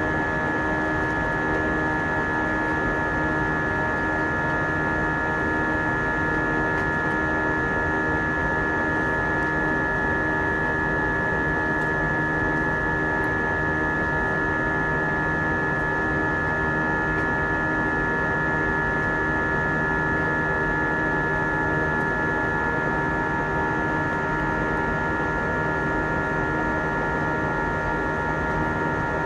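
Airbus A320 jet engine heard from inside the cabin during the climb after takeoff: a steady drone of rushing air with several steady whining fan tones on top, holding the same level throughout.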